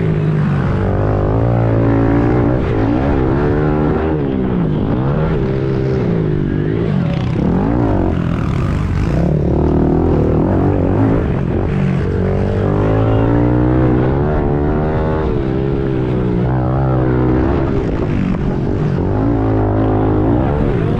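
Small pit bike engine running at full race pace, its pitch repeatedly rising and falling every second or two as the throttle is opened and shut.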